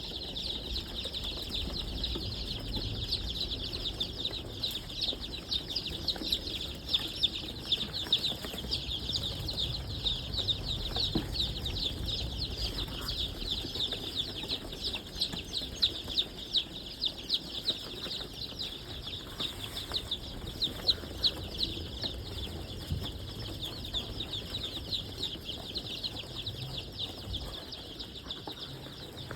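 A brooder full of young chicks peeping continuously, many high, short chirps overlapping into a constant chorus.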